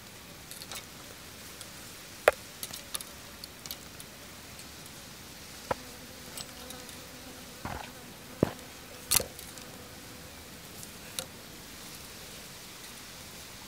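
Fishing line and a hook handled at the fingertips close to the microphone as line is wrapped around the hook shank for a no-knot: scattered sharp clicks and small rubbing sounds over a steady hiss. A faint hum comes in for a few seconds in the middle.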